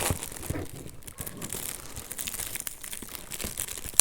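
Gift wrapping on a large box being torn open and crumpled by hand: irregular crackling and rustling.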